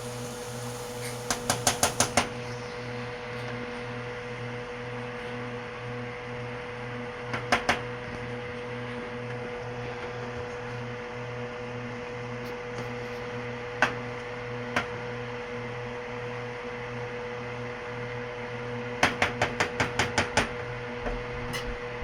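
Steady electric hum of a kitchen appliance, broken by short runs of rapid, evenly spaced clicks: one run near the start, a longer one near the end, and a few single clicks in between.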